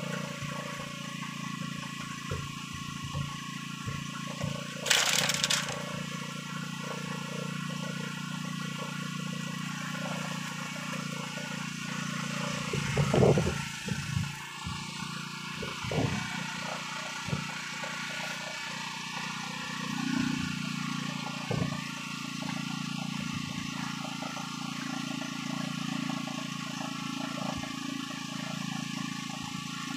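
Steady low hum of a fishing boat's motor, with scattered knocks and scrapes on the wooden deck and a louder splash of water at the hull about 13 seconds in.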